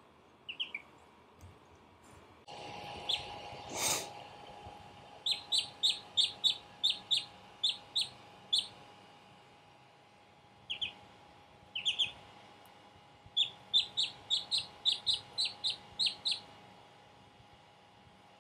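Duckling peeping: short, high chirps in quick runs of about three a second, with a pause in the middle. A faint steady hum runs underneath from a couple of seconds in.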